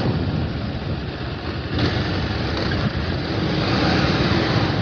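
Bajaj Pulsar 220F's single-cylinder engine running while ridden, with wind noise on the microphone.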